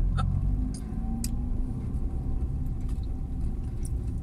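Steady low rumble of a car heard from inside the cabin, with a couple of faint clicks about a second in.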